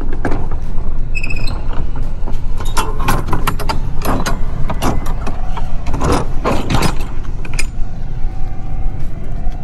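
A run of sharp metallic clanks and knocks from a semi-truck and its trailer hardware, over a steady low rumble. The clanks come thickest in the middle.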